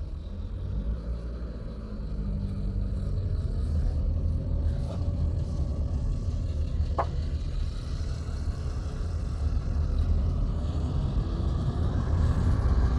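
Police car driving past close by: engine and tyre noise over a steady low rumble, growing gradually louder and loudest near the end.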